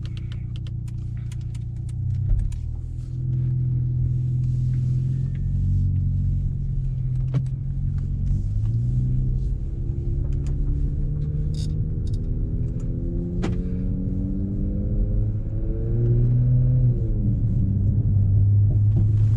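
Audi S5 B9's turbocharged V6 running through an AWE Track Edition exhaust while driving. The engine note climbs slowly in pitch for several seconds under gentle acceleration, then drops sharply near the end, as at a gear change, and settles to a steady drone.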